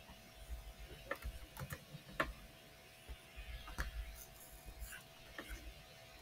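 Faint, scattered clicks from a computer being operated, about eight over a few seconds, over a faint steady electrical hum.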